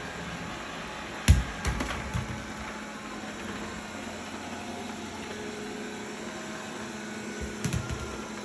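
Redmond robot vacuum cleaner running with a steady motor hum. A sharp knock comes just over a second in, followed by a few lighter ones, with another cluster of knocks near the end.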